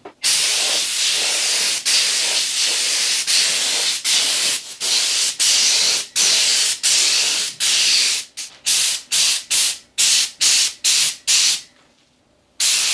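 Paint spray gun hissing in repeated trigger pulls. The bursts run about a second or less each at first, then quicken to short bursts of about three a second, pause briefly near the end, and start again.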